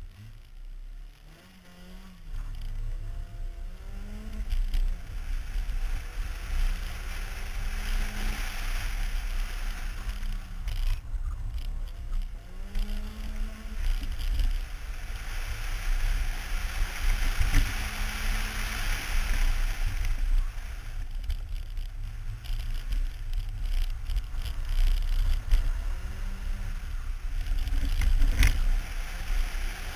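BMW E30 318is's four-cylinder engine running hard, its pitch climbing and dropping again and again as it works through the gears, from about a second in. Heavy wind and road noise buffets the microphone mounted outside the car.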